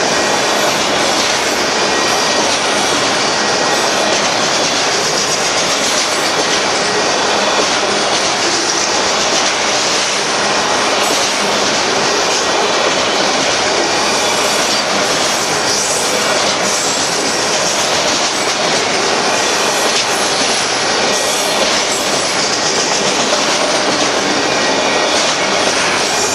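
Union Pacific freight train, mostly enclosed autorack cars, rolling steadily past at close range: a loud, continuous rush of steel wheels on rail.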